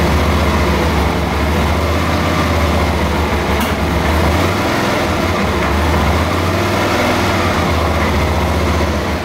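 Suzuki DL650's fuel-injected V-twin engine running steadily, with one short click about three and a half seconds in. New intake manifolds have not cured its sneezing, which the owner puts down to a lean rear cylinder backfiring into its intake.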